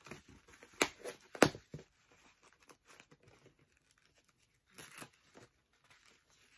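Cardboard and plastic doll packaging being torn and pulled open by hand: two sharp rips close together about a second in, with smaller crinkling around them, then another short bout of ripping and crinkling near the end.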